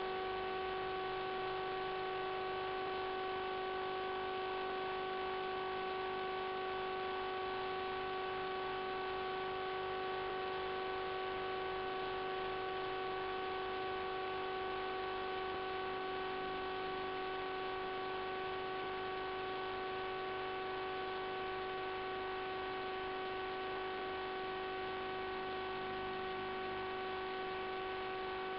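Steady electrical hum with several fixed tones over a hiss, unchanging throughout, as heard on the audio of an analog FPV video link rather than from the aircraft's motor.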